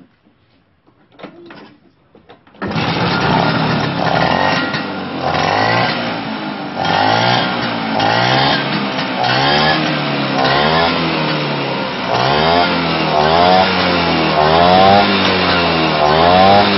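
Vespa scooter engine starting up abruptly after a few faint clicks, then running and being revved over and over, its pitch rising and falling about once a second.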